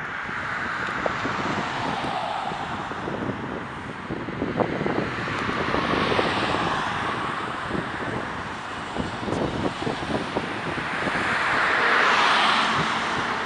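Road traffic: cars driving past one after another, the tyre and engine noise swelling and falling away with each pass. The loudest pass comes near the end.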